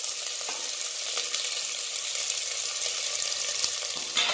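Freshly added chopped onions sizzling in very hot mustard oil in a pressure cooker, a steady hiss with a scatter of small crackles. A brief louder noise near the end.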